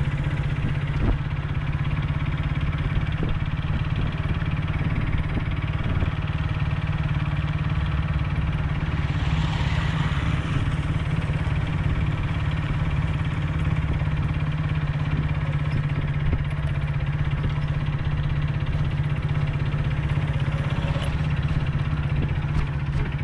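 Motorcycle engine running steadily, a constant low hum, with a hiss that swells and fades about ten seconds in.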